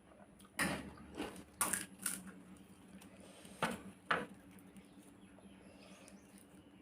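Pani puri being eaten close to the microphone: a handful of sharp crunches and mouth noises in the first few seconds, then only faint chewing.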